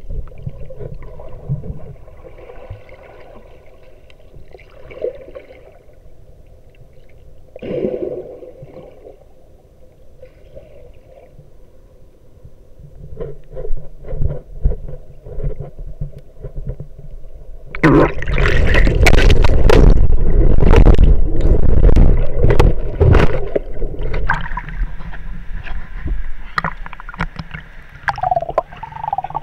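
Muffled rumbling and knocking from an action camera handled inside a waterproof case. About two-thirds of the way in, a loud rushing noise full of knocks takes over for several seconds, then dies back down to the rumble.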